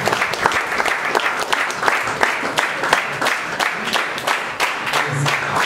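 Audience applauding: many hands clapping steadily and unevenly.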